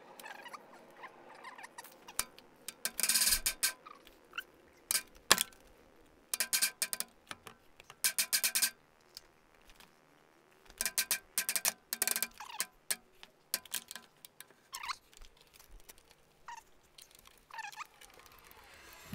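Short runs of rapid metallic clicking from a hand tool fastening the feed gearbox to the underside of a Schaublin 53 milling machine, with a few single knocks and brief squeaks in between.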